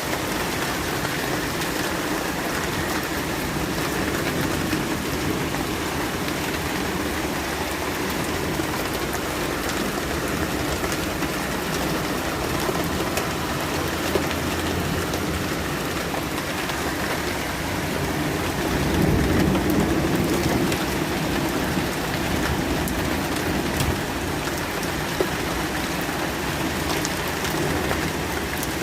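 Heavy downpour mixed with hail: a dense, steady hiss of rain and hail pelting surfaces, with a few sharp taps. A low rumble swells about two-thirds of the way through.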